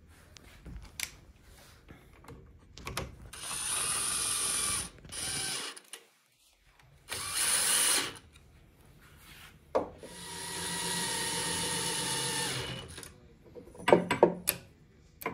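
Cordless DeWalt drill driving bolts into a metal bracket, running in four bursts with short pauses between them; the last and longest burst lasts about three seconds. A few sharp clicks come near the end.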